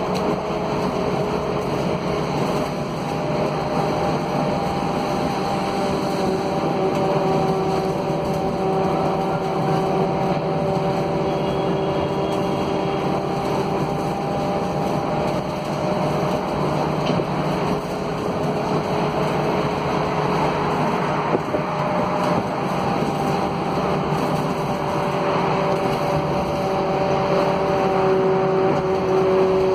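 Scania K280 city bus with its DC09 five-cylinder diesel and ZF Ecolife automatic gearbox, heard from inside the passenger cabin while driving: steady engine and road noise with a held whine that fades and returns at a slightly different pitch a few times.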